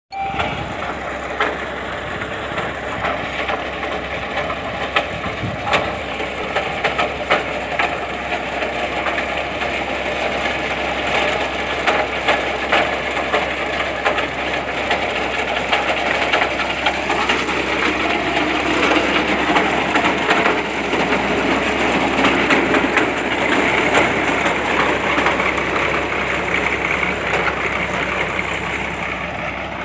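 Truck-mounted rotary borewell drilling rig running, drilling into sandy ground: a steady mechanical din from its engine and turning drill head, with frequent irregular knocks and clatter.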